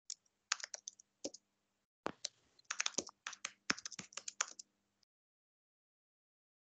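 Typing on a computer keyboard: a few keystrokes, then a faster run of keystrokes about two seconds in.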